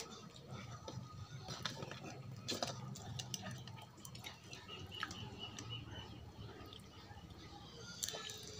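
Cooked crab shell being cracked and pulled apart by hand: a string of small, irregular clicks and crackles, with soft eating sounds beneath.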